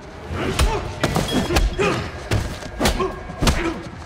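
Punches and body blows in a close-quarters fistfight: about six heavy thuds roughly half a second apart, with men grunting between them.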